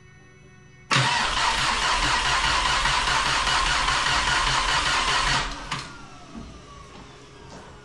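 Starter motor cranking the rebuilt VW Sharan's 1.8T engine for about four and a half seconds without it firing, with an even low pulse underneath. The ignition coils are disconnected, so the engine is only being spun over to bring oil up through it before the first real start. The cranking starts about a second in and stops abruptly.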